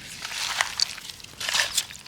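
Hands mixing raw chicken pieces with onions, spices and oil: wet squishing and crunching strokes in two bouts, with small sharp clicks.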